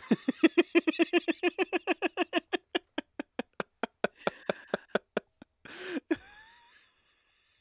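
A woman laughing hard in a long run of quick, even 'ha' pulses, about seven a second at first, then slowing and fading over about five seconds. About six seconds in it ends with a breath and a short rising squeak.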